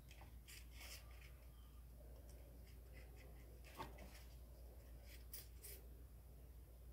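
Near silence: faint rustles and a few soft clicks from a handmade cardboard model locomotive being handled, over a low steady hum.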